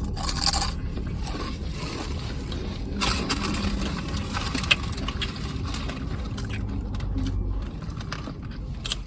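Close-up eating and food-handling noises: chewing, rustling and scraping, with a few sharp clicks about three and five seconds in.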